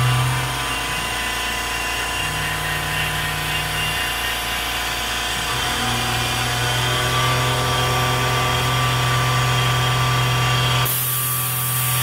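PM-25MV benchtop milling machine under CNC control, its end mill cutting aluminum: a steady machine hum and whine whose pitch shifts a few times as the moves change. Near the end the low hum drops away and a sudden high hiss takes over.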